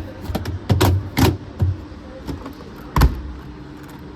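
A series of sharp knocks and clicks, about five in quick succession, then a louder knock about three seconds in.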